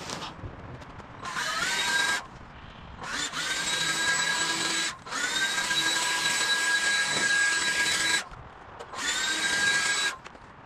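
Stihl handheld leaf blower run in four bursts. Each burst starts with a quick rising whine that levels off into a steady high whine over a rush of air, then cuts off when the trigger is released.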